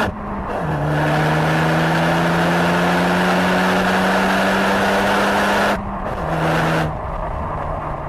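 Exhaust of a 2014 Ford Focus ST's turbocharged 2.0-litre four-cylinder on a full-throttle pull, heard at the tailpipes through a Mountune catback exhaust with the stock downpipe. It changes gear just after the start, climbs steadily in revs for about five seconds, breaks briefly near six seconds, and goes off the throttle about seven seconds in.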